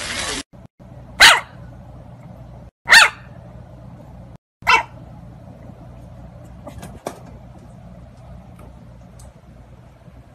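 A puppy barking three times: short, high yaps about a second and a half apart, the last one a little weaker, with a couple of faint clicks a few seconds later.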